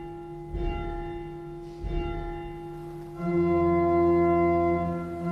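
Church organ holding a soft sustained note, joined by more held notes about three seconds in and swelling into a fuller, louder chord.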